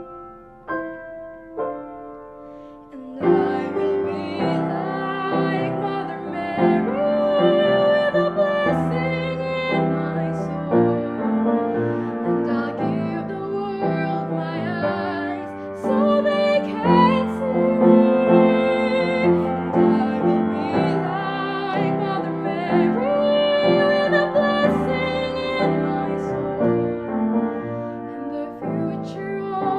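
Piano music: a few sparse notes at first, then from about three seconds in a full, sustained melody with held, wavering notes over the piano.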